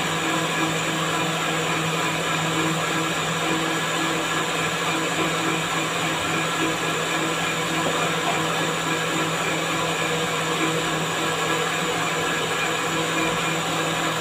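Electric countertop blender running steadily, blending lemon juice and mint leaves into a green drink. It gives an even motor hum that does not change in pitch or loudness.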